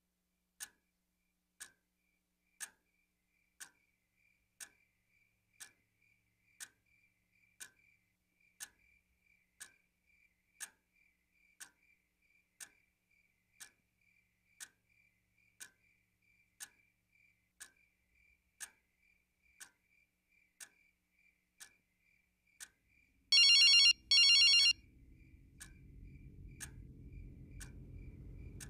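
Clock ticking about once a second in a quiet room. A little over 23 seconds in, a telephone rings loudly in two short bursts, and a low rumbling drone then slowly swells.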